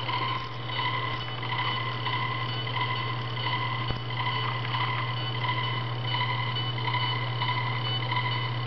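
Steady electrical hum with a high electronic beep pulsing on and off over and over, from a powered electronic control unit.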